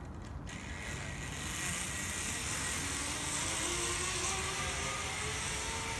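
Zip line trolley pulleys running along a steel cable: a hissing whir that sets in about half a second in and slowly builds, with a faint whine rising in pitch.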